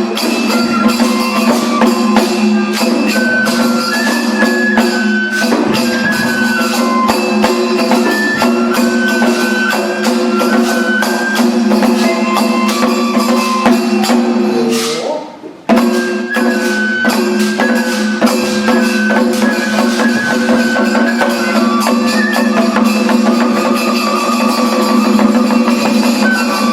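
Daikagura dance accompaniment: a high melody line stepping between notes over a steady low tone and busy percussion strokes. The music dips and cuts out briefly about fifteen seconds in, then resumes.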